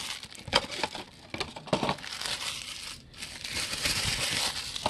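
Plastic wrapper from a sealed trading-card box being crumpled and handled. A few light knocks come in the first two seconds, then a steady crinkling over the last second and a half.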